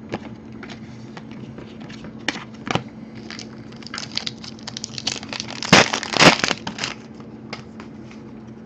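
Trading cards and their packaging being handled at a table: a run of soft clicks and rustles, with two louder rustles about six seconds in.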